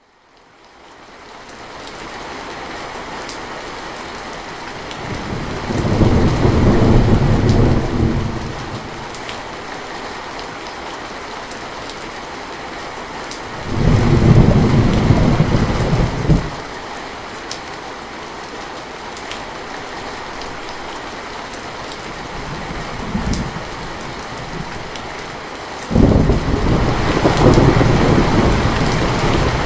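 Steady rain with rolling thunder, fading in from silence at the start. Long low rumbles of thunder build about five seconds in and again around fourteen seconds, a short one comes a little after twenty seconds, and a fourth begins a few seconds before the end and runs on.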